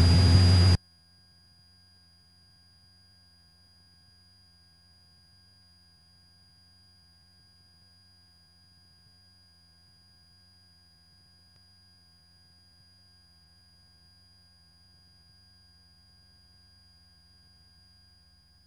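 Aircraft intercom audio feed: the radio sound cuts off suddenly under a second in. It leaves near silence with faint steady electrical tones and a low hum on the line.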